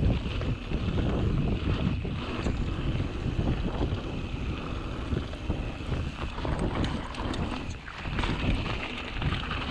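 Mountain bike riding along a dry dirt singletrack: wind buffeting the microphone over the rolling tyre noise, with a few brief clicks and rattles from the bike.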